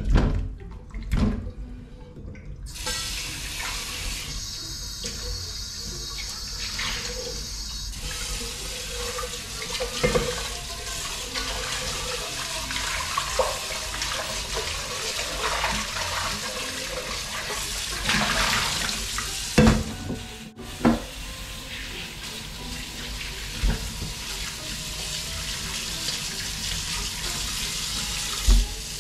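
Kitchen tap running into a stainless steel sink while a pot is rinsed and blanched legs are washed by hand under the stream, clearing off the scum from blanching. The tap comes on about three seconds in, after a few clunks as the pieces are tipped into the sink, and a few sharp knocks sound over the running water later on.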